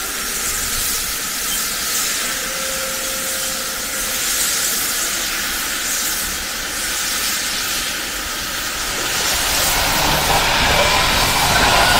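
Steady hiss of steam from Norfolk and Western 611, a J-class 4-8-4 steam locomotive. The deeper running sound of the moving train grows under the hiss near the end.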